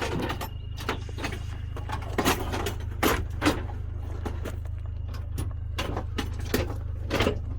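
Steady low hum of a running engine under a string of knocks and clunks, the loudest about two, three and three and a half seconds in and again near the end.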